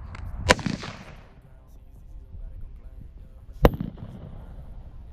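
Two gunshots about three seconds apart, each a sharp crack with a short echo trailing after it.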